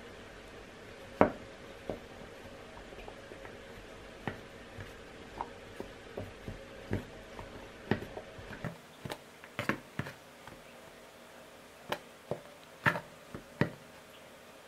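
Stainless steel bench scraper chopping cold butter cubes into flour, its blade knocking against the mixing bowl in irregular sharp taps, coming more often in the second half.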